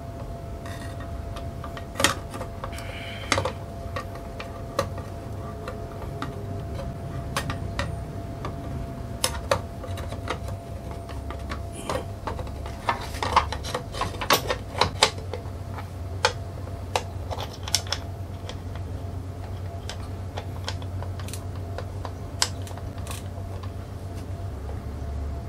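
Irregular metallic clicks and clinks of a circular saw blade, its flanges and arbor bolt being handled and fitted onto a slide miter saw by hand, thickest around the middle, over a faint steady hum.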